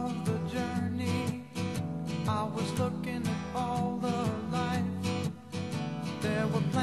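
Background music led by acoustic guitar, with a steady beat.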